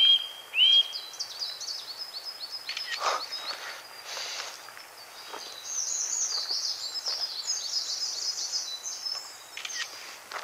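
Small songbirds calling in the trees: a few short repeated calls at the start, then high, rapid twittering that is busiest from about six seconds in. A single crunch is heard about three seconds in.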